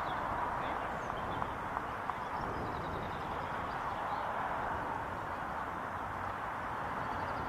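Steady open-air background noise with a few faint, high chirps and some soft clicks.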